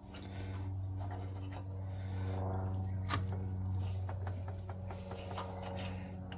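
Small metal clicks and rubbing from hand work on a small-engine generator's parts, over a steady low hum. A sharper click comes about three seconds in, and a short hiss near the end.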